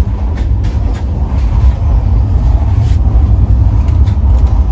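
Rajdhani Express passenger train running at speed, heard from inside the coach as a loud, steady low rumble.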